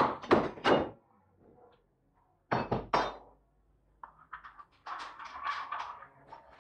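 Sharp metallic knocks and clinks: three in the first second and a few more about halfway, then a busy run of small clicks and rattles in the last couple of seconds.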